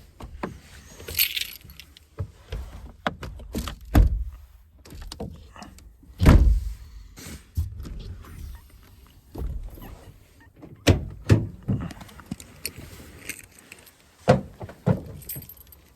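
A person clambering out of the back of a truck camper: scattered knocks, clicks and jingles, with two heavy thumps about four and six seconds in.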